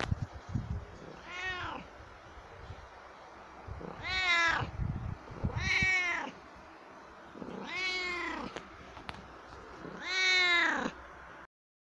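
Siamese cat meowing five times, each a drawn-out call that rises and then falls in pitch, a second or two apart.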